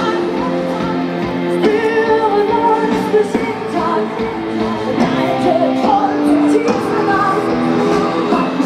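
Live heavy metal music with singing from a festival stage's sound system.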